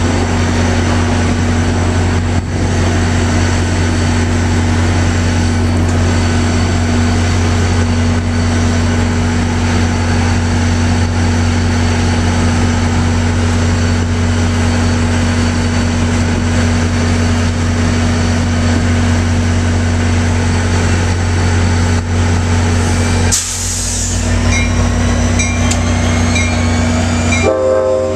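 Diesel locomotive engine idling with a steady low drone while the grade-crossing's mechanical bells ring on. Near the end a short hiss of air, then a slowly rising whine as the engine throttles up.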